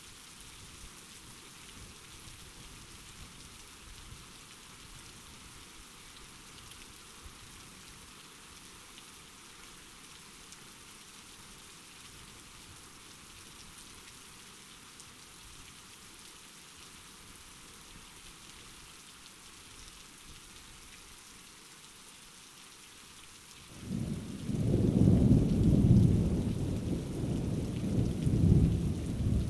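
Steady soft rain, then near the end a sudden loud, low rumble of thunder that keeps rolling for several seconds.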